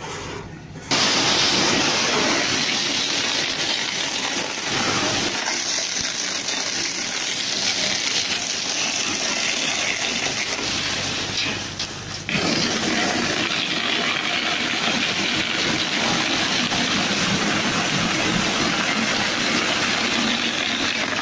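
Ice pouring down a canvas chute into a fishing boat's hold, a steady rushing noise that starts about a second in and breaks off briefly near the middle before resuming.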